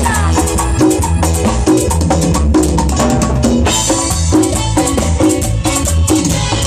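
Live Latin dance band (orquesta) playing an instrumental passage of the song, with steady bass, drums and hand percussion keeping an even beat under repeated melodic figures.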